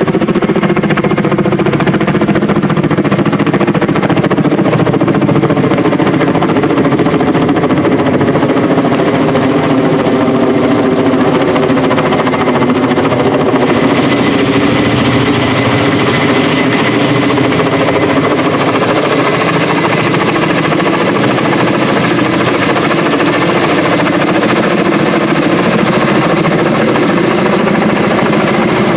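Kamov Ka-32 helicopter running steadily, its turboshaft engines and coaxial rotors giving a loud, even drone with a rapid pulsing beat. About halfway through, a harsher, hissier top end comes in.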